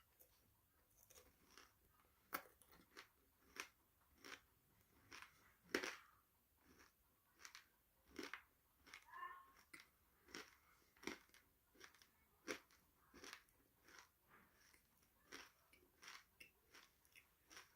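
A person chewing crunchy food close to the microphone: a steady run of sharp, separate crunches, a little more than one a second.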